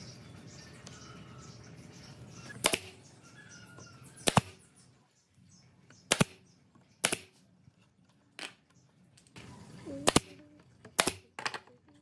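Pneumatic brad nailer firing about eight sharp shots at uneven intervals, driving brads into thin wooden lattice strips. Some shots come in quick pairs.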